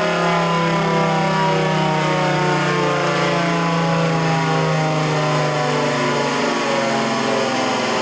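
Federal Signal Thunderbolt 1000T outdoor warning siren sounding a loud, steady tone whose pitch slowly falls.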